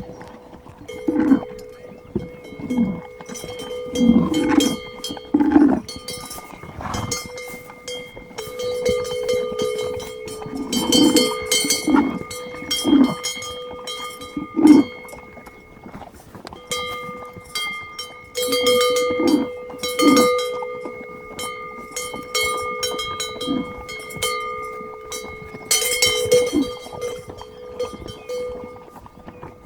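A livestock bell on one of the animals clanking in irregular clusters, each stroke ringing on, with short knocks and scuffs in between.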